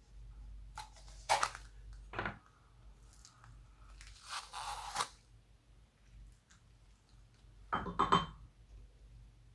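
Slime-mixing handling noises: a few short crackles and tearing-like sounds, with a rustle lasting about a second around the middle and two quick ones near the end.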